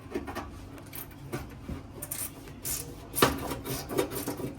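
Hand tool working a nut loose inside a sheet-metal HVAC cabinet: irregular metal clicks and scraping, louder about three seconds in.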